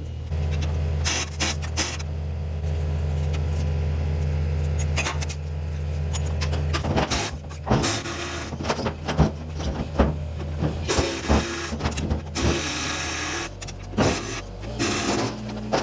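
Metal clanking and crunching as a combine harvester is broken apart for scrap, over the steady hum of a running machine engine. The first half is mostly the engine hum; from about halfway in come repeated sharp clanks, with two longer grinding, rasping spells near the end.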